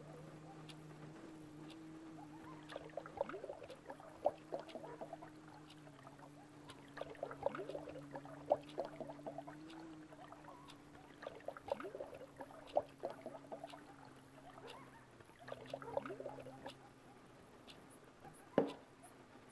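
Water poured from a glass pitcher into a drinking glass in several spells of splashing and gurgling, then a sharp knock near the end as glassware is set down on the wooden table. A low steady hum runs underneath.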